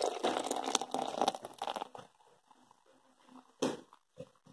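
Beer poured into a glass: a loud splashing pour for about two seconds, then the rising head of foam fizzing more quietly, with a short louder noise about three and a half seconds in.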